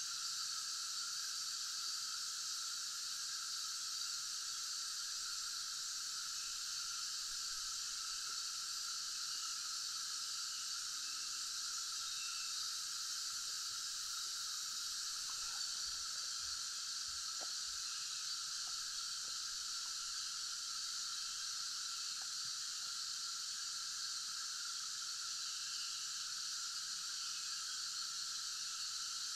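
Steady high-pitched drone of insects, held in a few even bands without a break, with a few faint clicks in the middle.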